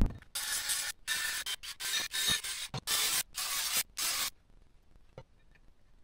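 A hand file rasping on the freshly sawn edge of an aluminum flat bar, deburring it: a run of short strokes that stop about four seconds in.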